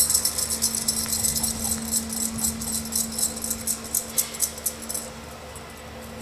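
A quick, irregular run of light clicks and rattles that stops about five seconds in, over a steady low hum.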